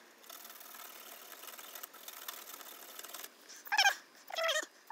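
A pet animal gives two short, high-pitched whining calls about three and a half and four and a half seconds in. Before them there is a faint, steady rasp of a small hand file being worked on a brass bushing.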